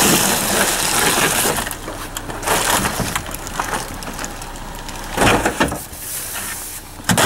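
Rummaging through discarded electronics in a dumpster: plastic and metal items scraping, shifting and clattering as they are handled, with louder bursts of clatter a few times and a sharp knock near the end.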